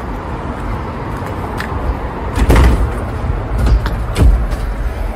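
Knocks and clatters of a heavy entrance door being pushed open, loudest about two and a half seconds in and again near four seconds, over a steady low street rumble.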